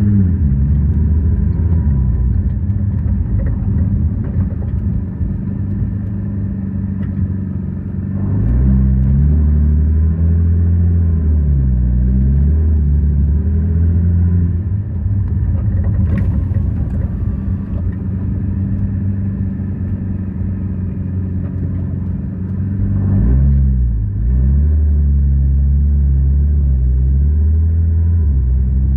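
2011 Nissan GT-R R35's twin-turbo V6 running with a steady low rumble, its pitch rising and falling several times. There is a single sharp knock about halfway through.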